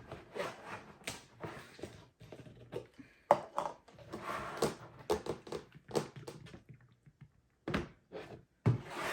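Scattered knocks, clicks and clatter of containers and a bottle being handled on a tabletop while slime ingredients are gathered.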